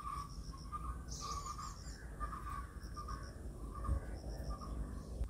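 Birds chirping faintly in the background, with short runs of high-pitched repeated pips.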